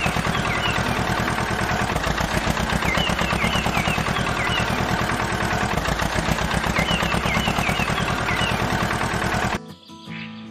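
A machine running with a fast, steady rattle, with bird chirps over it; the rattle cuts off abruptly about nine and a half seconds in.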